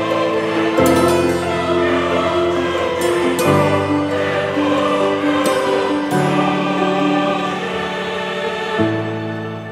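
Background music: slow, sustained chords that change about every two and a half seconds.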